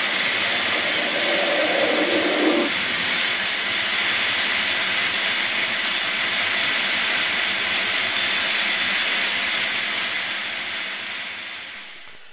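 A vacuum cleaner blows air through its hose into the inlet of a model beam engine cylinder to lift the piston. It is a loud, steady rush of air, with a lower note joining for a couple of seconds near the start. It winds down over the last two seconds as it is switched off.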